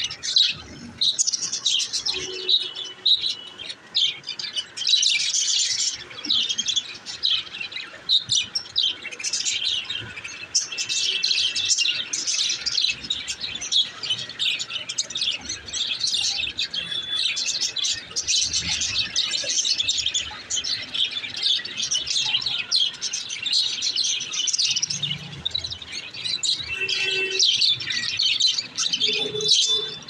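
Several budgerigars chattering continuously in a dense, overlapping stream of short high chirps, with a few brief held whistled notes.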